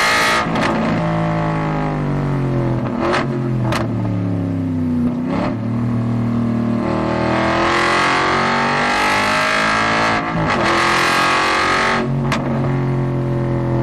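Aston Martin Vantage GT4's V8 engine heard from inside the cockpit. Revs fall with several sharp cracks as the car brakes hard from high speed. The engine then revs up under full acceleration, with two quick gear changes near the end.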